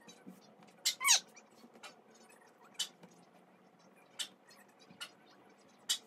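Sharp snaps and taps as soft cotton gauze handkerchiefs are shaken out and patted down onto a stack. A short squeal falls steeply in pitch about a second in, the loudest sound.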